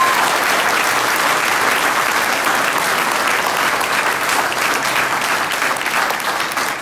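Crowd applauding steadily, easing off near the end.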